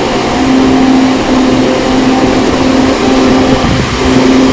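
A steady mechanical whirring noise, like a running motor, with a low hum that comes and goes.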